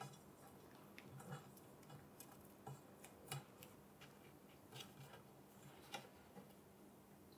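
Near silence, with a few faint clicks and taps as a 3D-printed nylon connector is handled and pushed onto a metal pipe.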